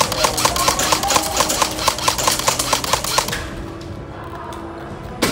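A rapid, even series of sharp clicks, about six a second, that stops about three seconds in, leaving a quieter low hum.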